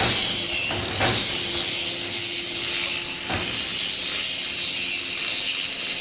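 HBY4-10 automatic compressed earth brick machine running: a steady mechanical hiss and hum, broken by a few sharp knocks of the press and clamp gear, while its output conveyor carries the pressed bricks away.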